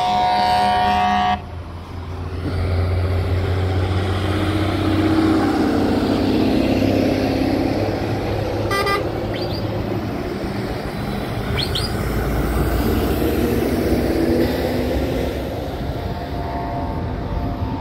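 Truck horns sounding a chord that cuts off about a second and a half in. Heavy truck engines then run past, with a short horn blast about nine seconds in and another horn sounding near the end.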